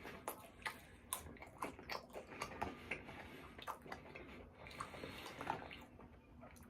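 Close-miked wet chewing and lip-smacking of someone eating, an irregular run of quick clicks and squelches several times a second.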